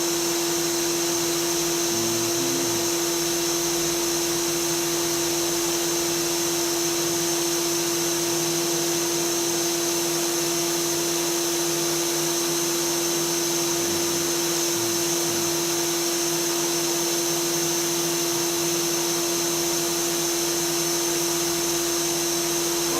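Spindle motor of a home-built CNC router running steadily at speed, a constant high whine with one strong steady tone; it is a cheap Chinese spindle that stays on.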